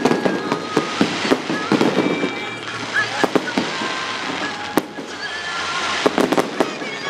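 Fireworks display: aerial shells bursting in quick succession, a dense run of bangs and pops with the sharpest bang a little under five seconds in.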